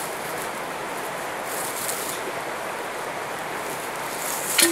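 Fast-flowing creek water rushing steadily, with one brief sharp click near the end.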